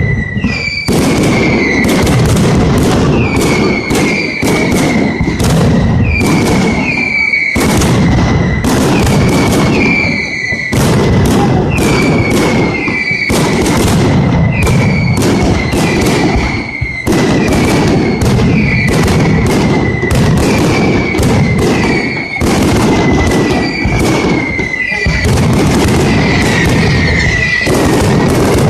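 Mascletà: a dense, unbroken string of firecracker bangs, many to the second, with a short falling whistle every second or so.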